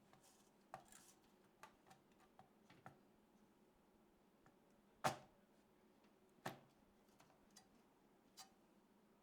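Light clicks and taps of small hard computer parts being handled and fitted, with two sharper knocks about five and six and a half seconds in, over a faint steady hum.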